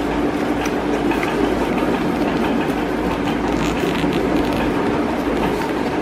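A steady mechanical hum with a held low drone, with a few faint crinkles of paper being folded and pressed along a crease.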